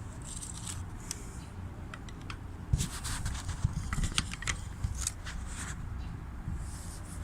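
Scattered light clicks and scraping, busiest in the middle, over a low steady hum.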